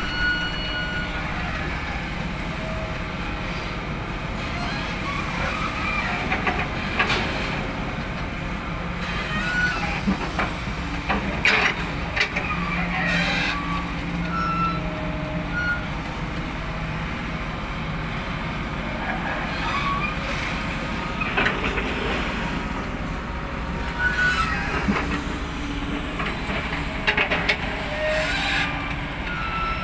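Excavator's diesel engine running steadily, with scattered scrapes and knocks as the bucket digs and loads soil into a dump truck.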